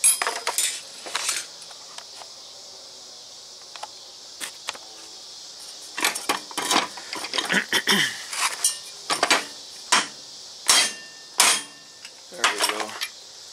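Sharp metal-on-metal knocks and clinks, a few at the start and then about a dozen irregular ones through the second half, some ringing briefly. This is a U-joint being knocked loose from a pickup driveshaft yoke held in a bench vise.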